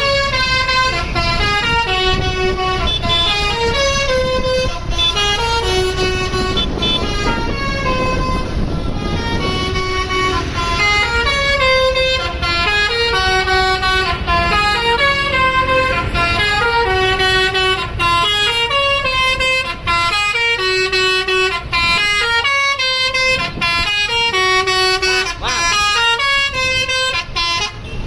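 Bus 'telolet basuri' musical air horn playing a tune in stepped notes, continuously, over a low rumble.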